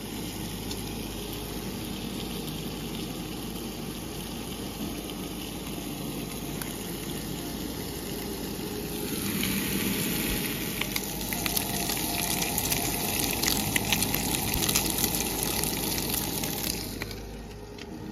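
Bacon sizzling in a cast-iron skillet on a camp stove: a steady frying hiss that grows louder about halfway through, full of crackles and spits, then falls away near the end.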